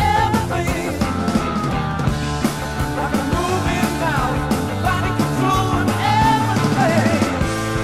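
Rock music with a singing voice, drums and distorted guitar, steady and loud throughout.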